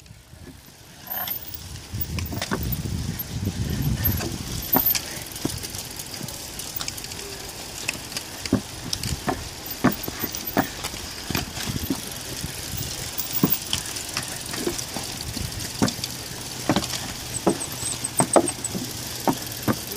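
Irregular sharp clacks and rattles from cyclocross riders running up a slope of wooden-edged steps with their bikes: shoes striking the ground and timber, bikes rattling as they are carried and pushed. A low rumble sits under the clacks in the first few seconds.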